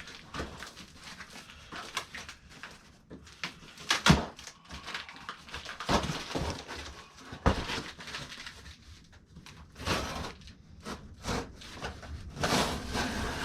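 Cardboard packaging rustling and scraping as a boxed grow-light shelf kit is unpacked, with a few sharp knocks of parts being handled and set down.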